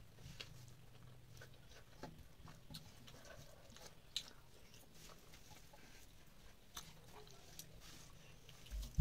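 Close-up eating sounds of rice and curry eaten by hand: soft chewing and lip smacks with scattered small clicks, the sharpest about four seconds in, over a faint steady low hum.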